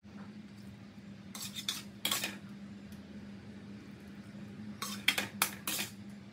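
Metal serving spoon scraping and clinking against a ceramic plate as fried noodles are served onto it. There are a few strokes about a second and a half in, then more about five seconds in, over a steady low hum.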